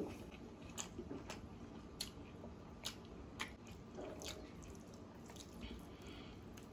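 Close-miked wet chewing of chicken curry and rice, with scattered sharp mouth clicks and smacks and soft squishy sounds of eating by hand.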